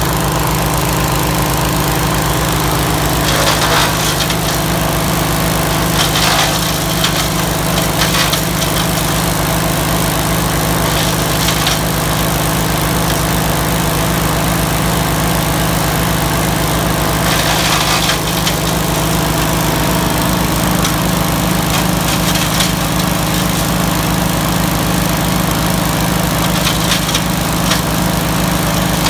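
The 20 hp Kohler engine of a ProMark 6-inch wood chipper running steadily at a constant speed. A few short bursts of metal clatter break in as the chipper's infeed hopper is swung between its positions.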